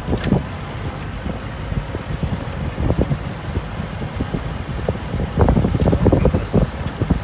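WWII-era Willys and Ford GPW jeeps driving in convoy on a gravel road: a steady engine and tyre rumble, with irregular gusts of wind buffeting the microphone.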